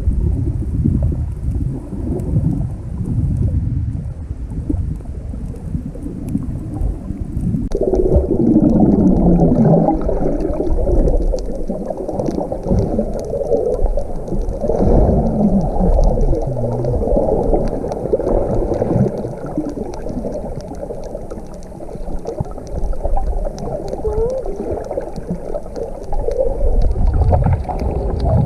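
Muffled underwater water noise with bubbling gurgles, heard through a camera held underwater while snorkeling. It is a low rumble at first and turns busier and more gurgling about eight seconds in.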